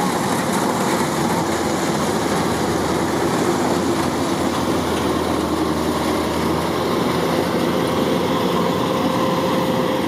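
Kubota DC-105X combine harvester running steadily while cutting rice: its engine and harvesting machinery make an even, unbroken noise.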